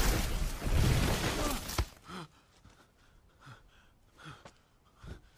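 Loud crash and rush of debris from a film collision as Iron Man tackles Thor into the forest, ending about two seconds in with a sharp crack. A few short breaths and grunts from a man follow.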